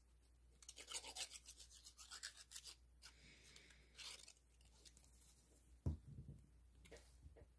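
Faint rubbing and rustling of small paper pieces being handled and glued, with a run of quick scratchy strokes in the first three seconds. A light knock about six seconds in, as the piece is pressed down onto the cardstock strip.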